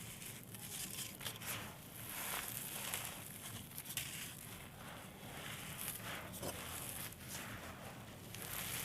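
Small dry blocks of gritty red sand-clay being crushed and crumbled, giving a run of crisp, irregular crackles and pops with a sandy hiss between them.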